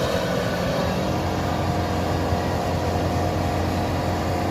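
Kubota DC93 rice combine harvester's diesel engine running steadily as the machine travels, a constant low drone with a thin steady tone above it.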